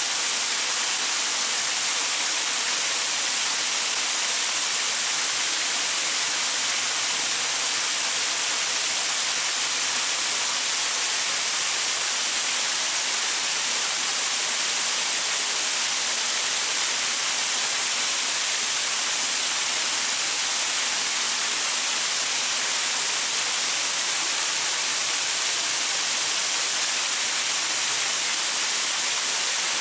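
Small waterfall splashing over rocks: a steady, even rush of water, strongest in the high hiss.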